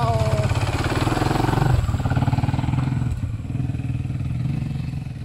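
Motorcycle engine revving and pulling away, with a brief dip about two seconds in, then running on and growing fainter near the end as the bike rides off.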